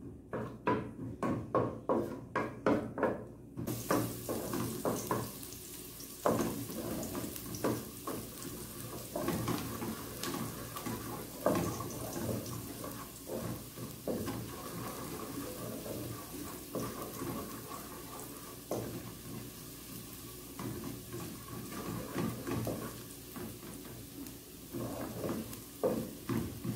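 Minced garlic sizzling in hot olive oil in an aluminium pot, a steady hiss that comes up about four seconds in, while a wooden spoon stirs and scrapes against the pot, at first in quick regular strokes of about two a second.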